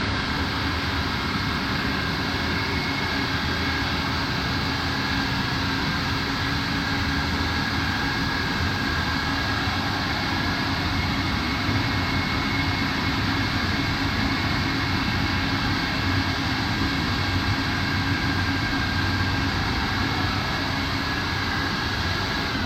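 Vacuum motor of a rug-cleaning machine running steadily, suctioning cleaning solution down through a wool rug from underneath; a steady rush with a low hum and a high whine.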